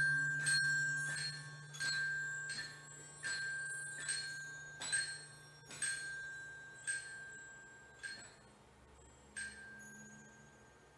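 Glockenspiel repeating one high note, about a dozen strokes that get gradually slower and quieter, over a low held note that fades out about eight seconds in.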